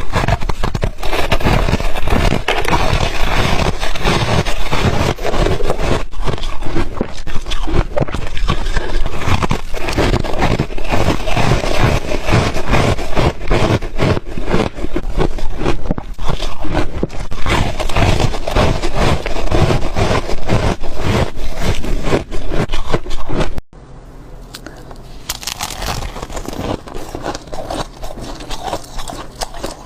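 Freezer frost being scraped and crunched close to the microphone: a dense, loud run of crisp crackles and scrapes. A little after three-quarters of the way through it cuts abruptly to a quieter passage, with a steady low hum under softer crackling.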